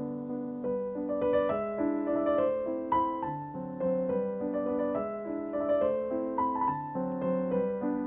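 Background piano music: a melody of single notes over held lower notes and chords.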